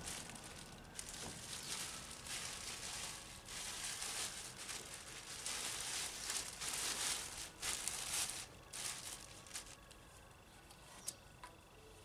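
Plastic bags rustling and crinkling in irregular bursts, settling down about nine seconds in, with a couple of sharp clicks near the end.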